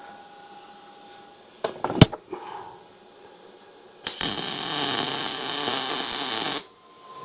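Miller MIG welder laying a short weld bead: a steady hiss about two and a half seconds long, starting about four seconds in and cutting off sharply when the trigger is released. A few sharp metal knocks come around two seconds in, before the weld.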